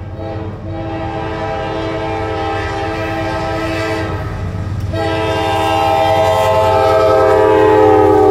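Norfolk Southern GE AC44C6M diesel locomotive's multi-note air horn sounding a long blast that ends about five seconds in, then another, louder blast as the locomotive draws level, over the low rumble of the approaching train.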